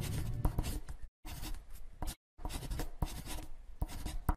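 Marker scratching across a writing surface in quick strokes as it writes a line of text. It cuts out to silence twice, briefly.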